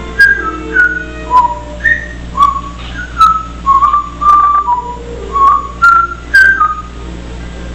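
African grey parrot whistling a tune: a string of about a dozen short, clear notes that step up and down in pitch, about two a second, each starting with a sharp click.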